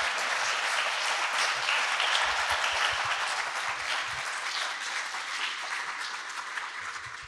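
Audience applauding, a dense steady clapping that gradually dies down over the last couple of seconds.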